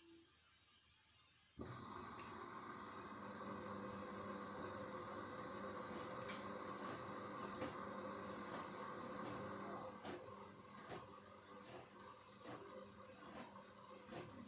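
A Candy washing machine starts up abruptly about one and a half seconds in and runs with a steady rushing hiss over a low hum. From about ten seconds in it eases slightly and light regular clicks join it.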